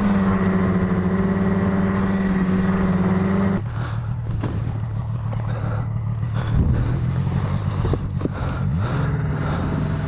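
Snowmobile engine running at a steady high speed. About three and a half seconds in, its pitch drops and it gets a little quieter, then it climbs again near the end.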